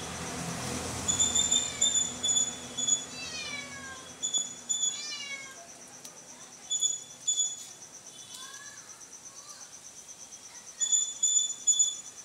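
A steady high insect trill, with clusters of short, sharp high chirps over it and a few sliding calls that fall in pitch.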